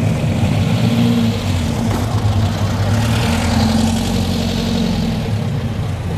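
Classic cars' engines running at low speed as the cars drive slowly past close by, a steady low engine sound that swells a little as each car passes.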